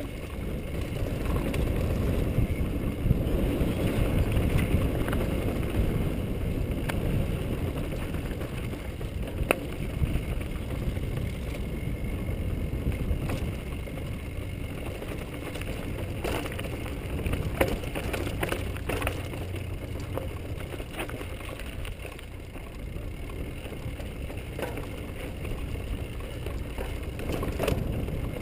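Mountain bike riding down a rocky trail: a steady low rumble of wind on the microphone and tyres on stone, with the bike rattling and sharp knocks as it hits rocks, several in quick succession in the second half.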